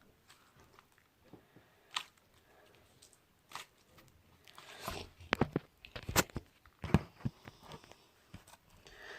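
Slime being squeezed and stretched by hand, giving sharp clicks and pops, a few at first and then a thicker run of louder ones from about halfway in.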